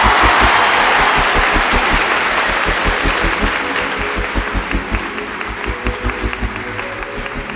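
Applause that starts loud and fades gradually, over background music with a steady beat.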